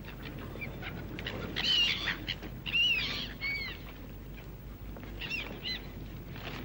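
Birds calling: short, arched, high-pitched calls in three groups, about two seconds in, around three seconds in and again near the end, over a faint steady hiss.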